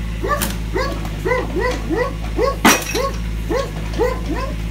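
A dog barking over and over, about two to three barks a second, over the steady hum of a mini excavator's engine. About two and a half seconds in, a single sharp crack as the excavator bucket presses down on a ceramic toilet.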